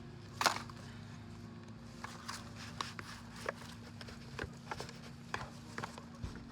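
A string of light, irregular knocks and scrapes, one louder knock about half a second in and then roughly one or two a second, from hands working through potting soil and potatoes in a container. A steady low hum runs underneath.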